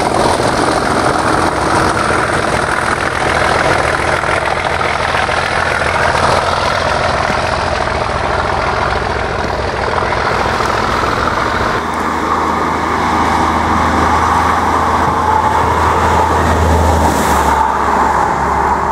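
Class 37 diesel locomotive with its English Electric engine running as it hauls a test train past, mixed with wheel and rail noise. From about two-thirds of the way through, a steady low engine drone stands out more as the locomotive approaches.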